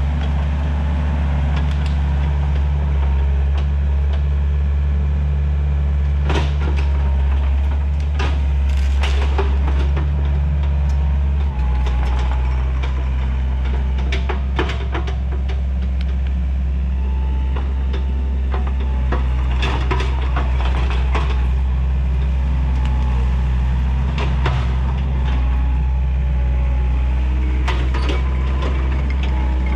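Takeuchi TL130 compact track loader's diesel engine running steadily under load, its note shifting about a third of the way in. Repeated sharp cracks and snaps of wood sound over it from about six seconds in, as brush and small trees are pushed over and broken.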